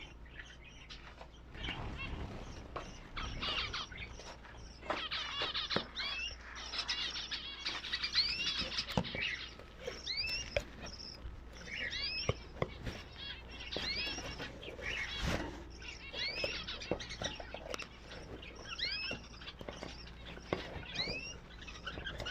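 Small birds chirping over and over, a stream of short rising calls, with scattered sharp clicks and knocks among them.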